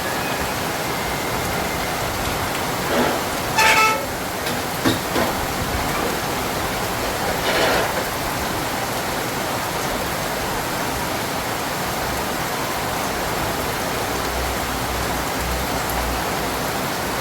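Heavy rain falling steadily as an even hiss, with a short pitched sound about three and a half seconds in.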